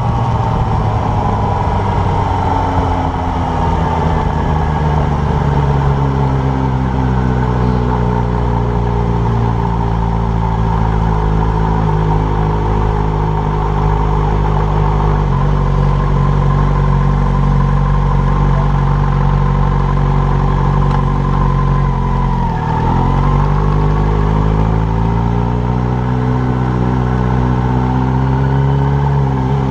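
Yamaha motorcycle engine running at low town speed, heard close up from the handlebars. The engine note sags slightly at first, dips sharply about three-quarters of the way through as the throttle is rolled off or a gear is changed, then climbs again as the bike picks up speed.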